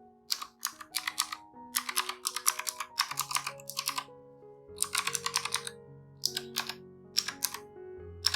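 Typing on a Razer Huntsman Mini 60% keyboard with optical switches: runs of quick keystrokes broken by short pauses, over background music.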